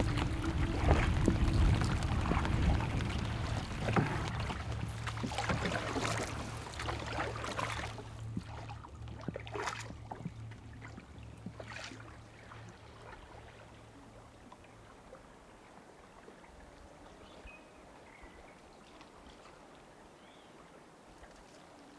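Heavy rain spattering on lake water and on a canoe, with many sharp drop hits over a low rumble; it dies away about halfway through into quiet lakeside ambience.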